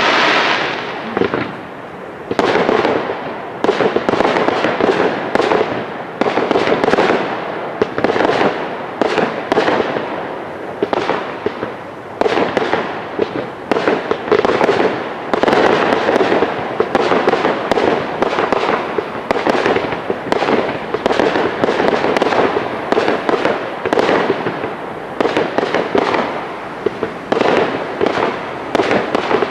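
Fireworks display: a continuous barrage of shell bursts and bangs, several a second, with no pause.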